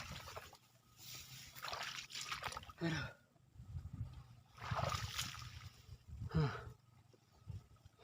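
Water splashing and sloshing in several short bouts.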